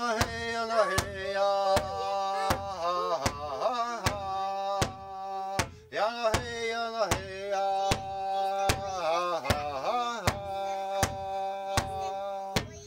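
A man singing a Native American-style chant in long held notes with falling glides, over a large laced hand drum struck with a padded beater in a steady beat of about two strokes a second. The voice breaks off briefly about halfway through while the drumming goes on.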